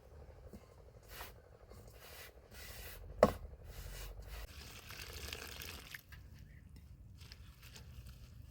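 Food-preparation handling sounds: quiet scraping and light clicks, with one sharp knock about three seconds in and a soft hiss for a few seconds after it.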